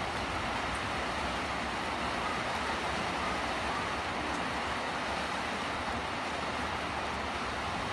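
Steady rushing hiss of rain and wind in a storm, even throughout with no distinct events.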